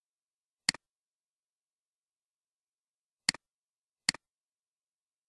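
Three computer mouse clicks, each a short, sharp double tick of press and release: one about a second in, then two close together near the end.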